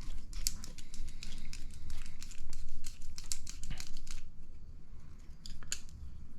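Small hard plastic kit parts and hand tools being handled on a workbench: a quick run of clicks and crinkles for about four seconds, then a few separate clicks.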